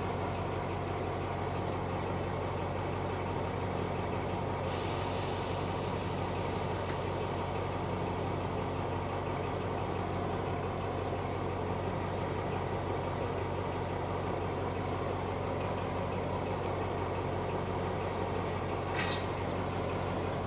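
Alsthom diesel-electric locomotive idling steadily at a standstill, a constant low engine drone.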